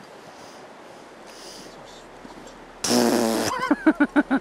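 A man's loud cry of under a second, followed by a quick run of about five bursts of laughter, over the steady rush of the river: his reaction to missing a fish on the float rod.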